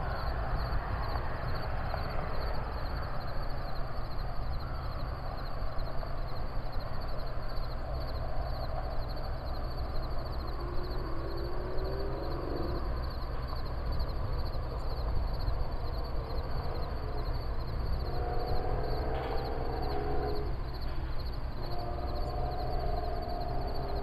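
Rural outdoor ambience: a steady low rumble under a continuous high, rapidly pulsing buzz like an insect chorus. Drawn-out animal calls come in three groups: about ten seconds in, again around eighteen seconds, and near the end.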